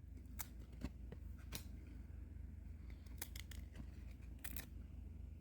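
Faint, scattered sharp clicks and crinkles of a trading-card pack being opened and its cards handled, over a low steady hum.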